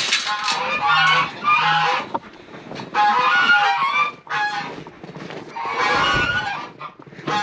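Domestic geese honking in several bursts of overlapping calls with short pauses between.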